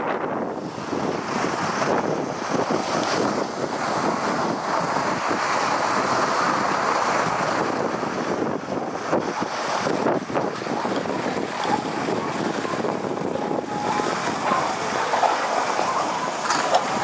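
Wind rushing over the microphone of a skier going downhill: a steady, rough noise with fast buffeting.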